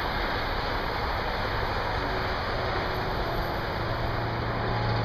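Steady rumble and rail noise of an Amtrak passenger train running away down the track. A low steady drone comes in about four seconds in.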